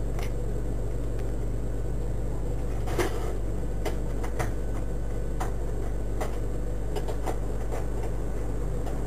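Steady low electrical hum with a few faint, scattered clicks.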